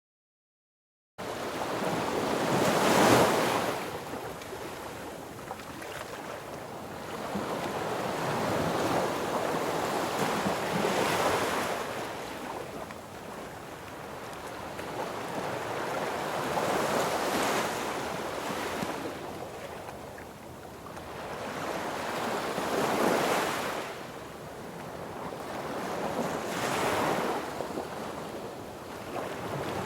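Sea waves breaking on a beach, surging and drawing back every five or six seconds, with wind on the microphone. The sound cuts in suddenly about a second in, after silence.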